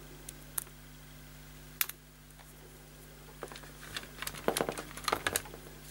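Small hard plastic parts of a 1980s Bush clock radio's button assembly being handled: a few separate clicks at first, then a quick run of clicking and rattling over the last two seconds or so. The button pads are rubber that has gone hard and brittle.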